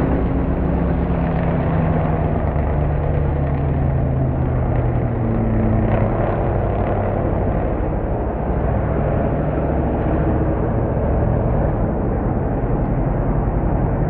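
Car engine running under a steady rush of noise. Its pitch falls slowly over the first several seconds as the car slows down the drag strip, then holds lower and steadier.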